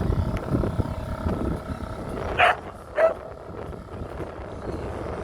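A dog barks twice, about half a second apart, over a low steady rumble.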